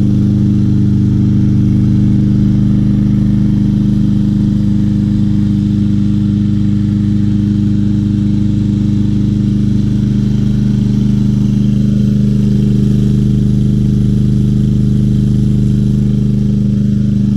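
Craftsman M320 lawn mower's Briggs & Stratton 163cc engine running steadily at a constant speed, evenly and without missing.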